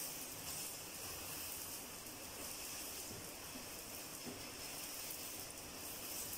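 Mint paratha sizzling in oil on a hot nonstick tawa: a steady, faint hiss, with a few soft ticks as a steel spatula presses the bread down.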